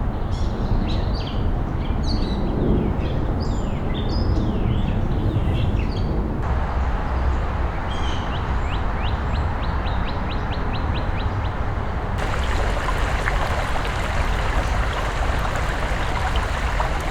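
Songbirds chirping, then one bird's fast trill of about four quick downward notes a second, over a steady low rumble. For the last few seconds the birds give way to a steady hiss.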